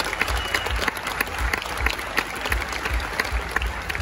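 Audience applauding, many hands clapping, with a low thud repeating about twice a second underneath.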